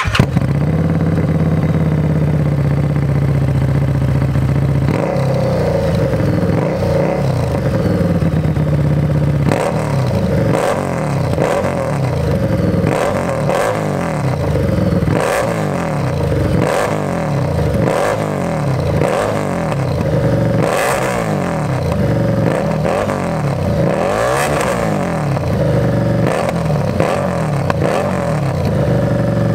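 Harley-Davidson Street Rod's 750 cc V-twin idling through its exhaust, then revved in quick throttle blips about once a second, each rising and falling in pitch, before settling back to idle near the end.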